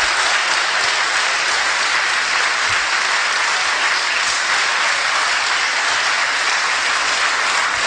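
A large audience applauding: dense, steady clapping without a break.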